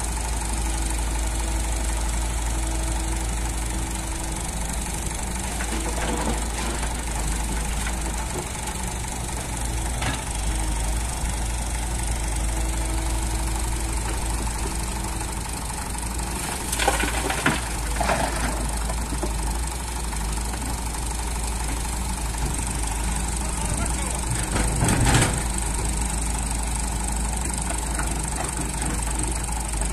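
Diesel engines of a Volvo EW145B wheeled excavator and a farm tractor running steadily. Loads of rock and earth crash down from the excavator bucket into the trolley, twice just past halfway and once more near the end.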